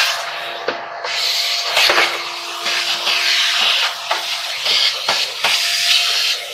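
Shop vacuum running with its crevice nozzle worked over a clothes dryer's top panel and lint housing. The rush of sucked air swells and fades as the nozzle moves, and the nozzle knocks against the panel several times.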